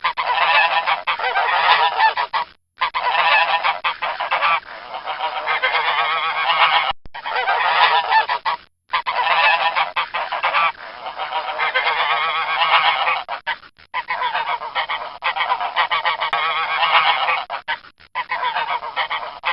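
Domestic geese honking, several calling at once in dense, overlapping stretches broken by about five brief silences.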